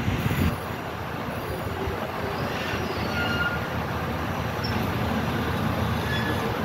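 Steady low rumbling of the SS Badger car ferry manoeuvring into its slip, with a few faint, brief high squeaks.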